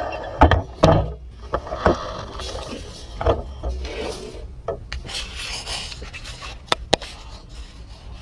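Hand tools and car parts being handled during suspension work: scattered sharp knocks and clicks of metal with rubbing and scraping between them, the knocks loudest in the first two seconds and again just before 7 seconds in.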